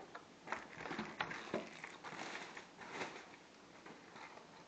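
Faint handling noise from a keyboard and its plastic packaging being moved about: scattered light clicks and rustling, dying down over the last second or so.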